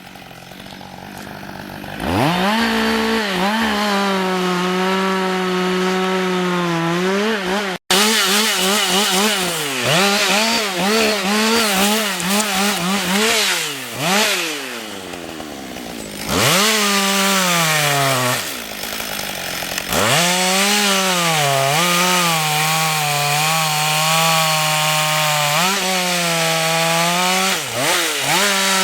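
Husqvarna 562 XP two-stroke chainsaw revved up to full throttle about two seconds in and cutting wood, its pitch sagging and recovering under load. The revs fall away twice midway and climb again, then drop near the end.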